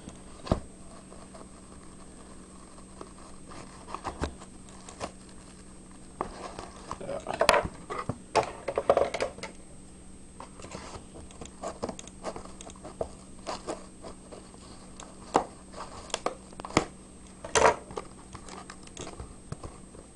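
A mailed package being handled and pried open by hand: crinkling and tearing of the packaging with scattered taps and scrapes, and louder bursts of rustling about seven to nine seconds in and again near the end.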